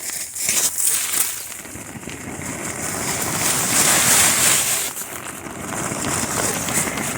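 Sleet and ice sliding and rattling down the plastic sheeting of a small hoop house as it is knocked off. It makes a long, loud, rushing hiss that swells to its loudest about halfway through, with a few sharp ticks near the start. The ice has to come off or the hoop house could collapse under its weight.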